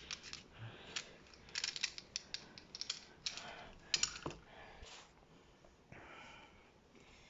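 Metal parts of a Beretta M9-style pistol clicking and rattling as it is field-stripped by hand, a string of irregular sharp clicks with the loudest about four seconds in.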